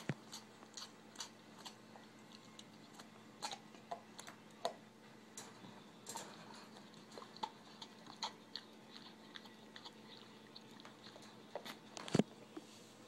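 Bull terrier chewing and gnawing a red rubber Kong toy: irregular soft clicks of teeth on rubber, with one louder knock near the end.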